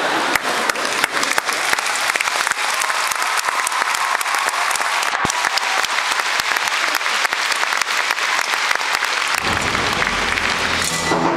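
A large audience clapping, a dense patter of many hands. About nine and a half seconds in, a deep low rumbling sound comes in underneath the clapping.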